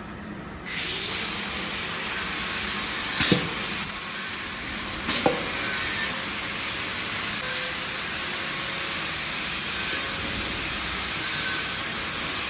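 Steady air hiss around a pneumatic ultrasonic mask-welding press. It is broken by a few sharp clicks and knocks near the start, about three seconds in and about five seconds in.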